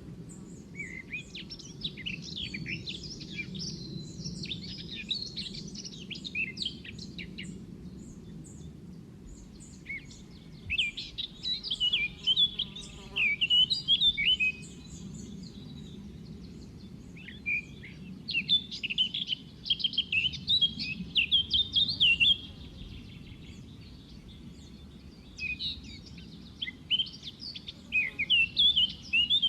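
Young white-eye (pleci) chirping in rapid, high twittering bouts of a few seconds each, with short pauses between them, over a steady low hum.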